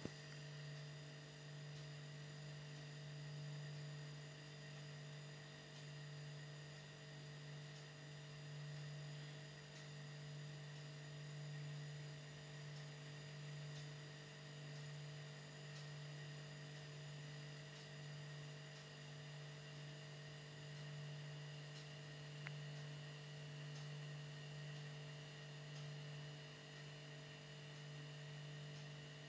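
A faint, steady low hum that swells and fades gently every few seconds, with thin higher tones above it; a small click about three-quarters of the way through.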